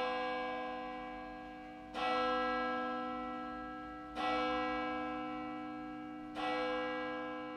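A large bell tolling, struck three times at slow, even intervals of about two seconds, each stroke ringing on and fading before the next.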